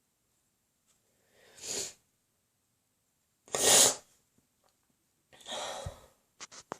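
Three sneezes about two seconds apart, the middle one the loudest, followed by a few short clicks near the end.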